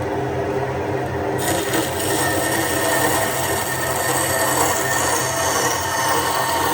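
A power tool running steadily, working wood, with a constant hum and a higher hiss joining about a second and a half in.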